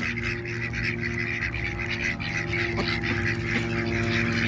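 A flock of ducks calling constantly, many short overlapping quacks crowding together, over a steady low hum.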